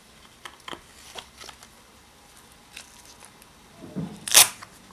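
Handling noise from a Victorinox pocketknife and its leather pouch: scattered light clicks, then one loud, sharp snap near the end.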